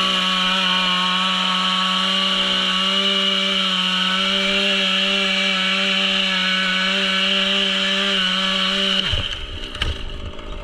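Chainsaw held at full throttle, cutting through a storm-damaged pine with a steady high engine note. About nine seconds in it is let off and the pitch drops away, followed by scattered knocks and rustling.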